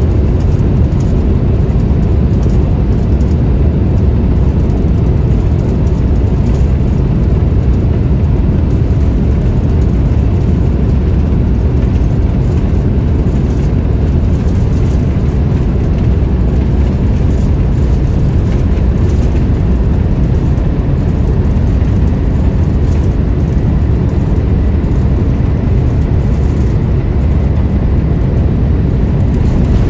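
Airliner cabin noise aboard an Airbus A350-1000: a steady, loud low rumble from its Rolls-Royce Trent XWB turbofans and the airflow, heard through the fuselage. A faint steady tone runs over it.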